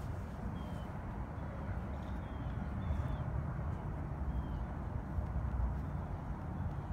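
Steady low outdoor rumble with several faint, short, falling bird chirps scattered through it.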